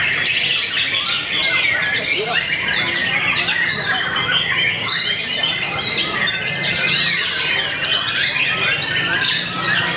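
White-rumped shamas singing in a song contest: a continuous, dense chorus of fast, overlapping whistled and chattering phrases, with many caged birds singing at once.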